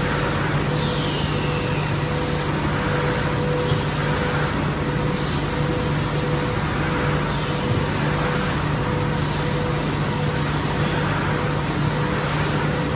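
Industrial MgO board sanding machine running: a steady mechanical noise with a constant low hum and a fainter tone pulsing at a regular rate.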